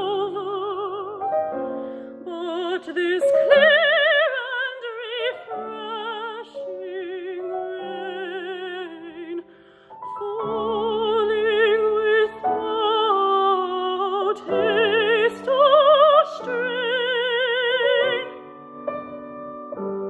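Mezzo-soprano singing an art song with wide vibrato over piano accompaniment. The music drops out briefly about halfway, and near the end the voice stops, leaving the piano playing alone.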